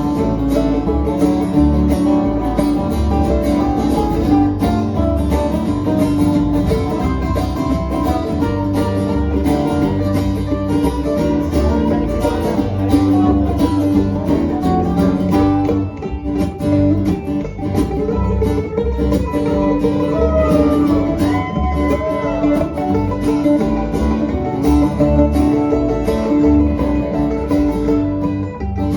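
Instrumental break of a country gospel song played by a string band, led by guitar over a steady beat.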